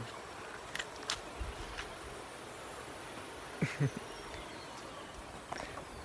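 Faint steady chirring of insects in tropical forest, with a few light clicks early on and a couple of short faint sounds a little past halfway.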